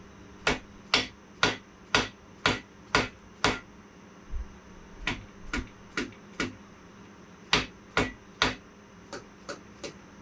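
Hammer blows seating a main bearing cap on a Ford 400 V8 block during the crankshaft install: sharp strikes about two a second in runs, with lighter taps in the middle and near the end.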